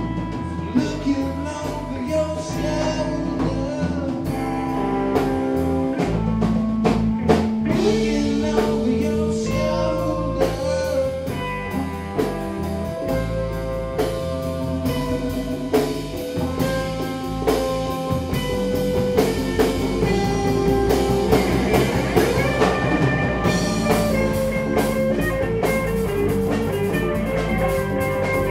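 Live blues-rock band playing: electric guitars, bass and drum kit, with a lead line of long held notes that bend in pitch over a steady drum beat.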